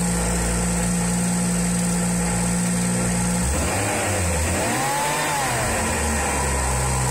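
BMW N55 inline-six engine idling steadily, heard at its front accessory belt drive, where the worn belt tensioner is shaking side to side. About four to five seconds in there is a brief tone that rises and then falls in pitch.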